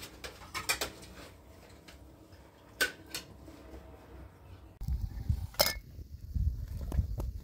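Scattered clinks and light knocks of kitchenware being handled. About five seconds in, a low rumble starts and one more sharp clink sounds.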